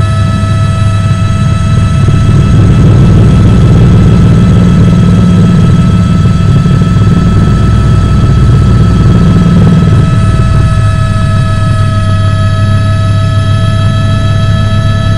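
Helicopter running steadily: a low rotor and engine rumble under a steady high whine that holds one pitch.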